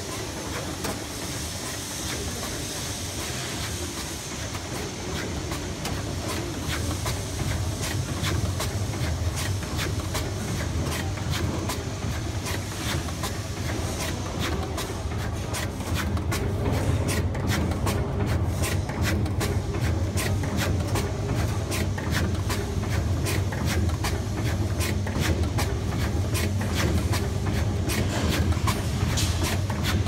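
Knife pleating machine running: a steady motor hum under rapid, continuous mechanical clacking of the pleating mechanism, which grows denser and louder about halfway through.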